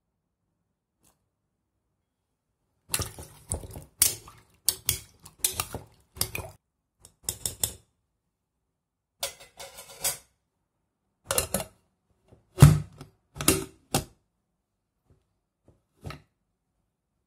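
Metal clinks and knocks from a Prestige Svachh stainless steel pressure cooker pot and its lid being handled. They come in an irregular string of sharp hits from about three seconds in to about fourteen seconds, with one small click near the end.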